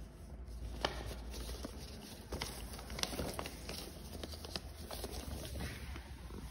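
A sheet of printed paper rustling and crinkling as it is handled, with irregular sharp clicks and crackles.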